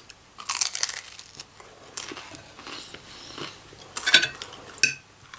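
A person biting into and chewing crunchy fried food, with crisp crunches about half a second in. Near the end come a few short clinks of cutlery on a plate.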